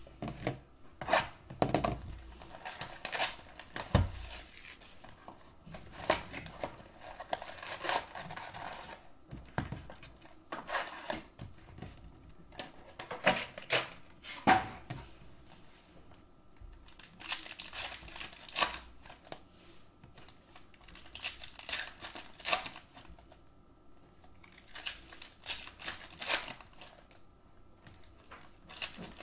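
Cardboard trading-card box and its foil Panini Prizm basketball packs being handled: irregular bursts of crinkling and tearing with short pauses between them.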